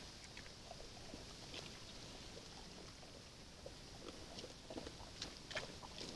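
Brown bears eating from a bait box: faint, scattered crunches and clicks of chewing, coming thicker in the second half, over the steady hiss of a trail camera's microphone.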